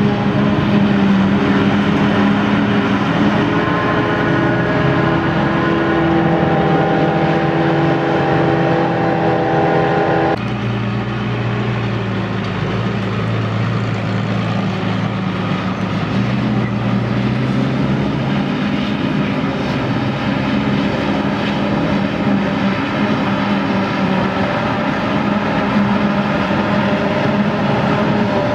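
Claas Jaguar 890 self-propelled forage harvester running steadily while chopping grass and blowing it through its spout into a trailer, with the hauling tractor's engine running alongside. The sound changes abruptly about ten seconds in.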